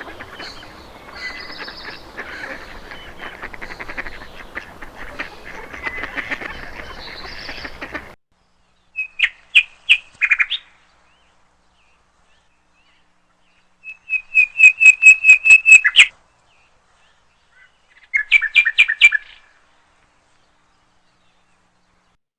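Bird calls: first about eight seconds of dense, busy chattering, then three separate bursts of rapid, evenly spaced high chirps, the middle one a fast trill of about a dozen notes.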